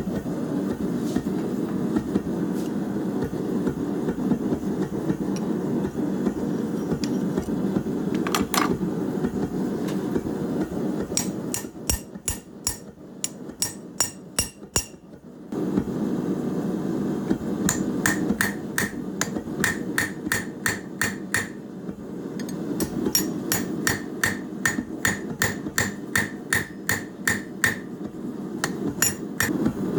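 Hand hammer striking steel in forging: a single ringing blow, then quick runs of about two to three blows a second with a short pause between runs. A steady low rushing noise lies underneath and drops away for a few seconds in the middle.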